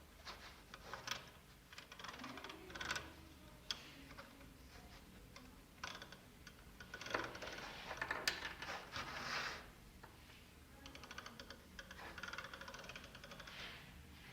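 Small plastic Lego ratchet clicking in quick runs as the crane's crank is turned, the pawl snapping over the ratchet wheel, with rattling and handling of the plastic parts in between.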